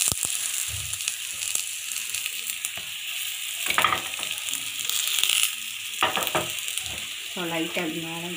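Oil sizzling in a pan as stuffed wheat-dough patties shallow-fry, a steady high hiss throughout, with a sharp click right at the start as a patty is set down.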